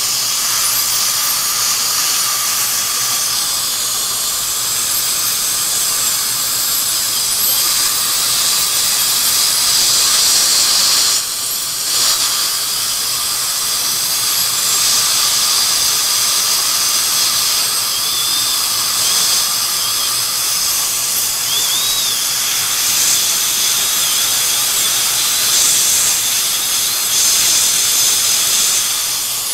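High-speed dental handpiece drill whining steadily as it cuts tooth, with a hiss of suction and spray; its pitch wavers slightly and the whine drops out briefly about eleven seconds in. The teeth are being shaped to take a new bridge.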